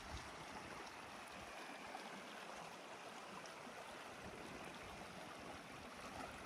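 Shallow rocky creek running: a steady, faint rush of water over stones.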